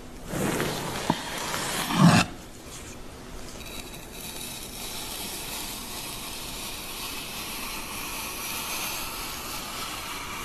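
A large kitchen knife sawing through a loaf of bread, a crunchy rasp with a click about a second in and a louder crunch near two seconds as it breaks through the crust. Then a quieter, steady hiss-like sound of the blade slicing cucumber on a wooden board.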